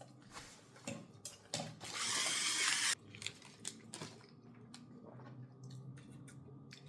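Eating sounds: scattered clicks and chewing of a salad-and-chicken meal. About two seconds in comes a loud hissing rustle that lasts about a second and cuts off sharply.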